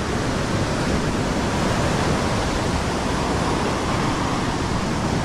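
Steady rushing noise of surf breaking on a steep beach.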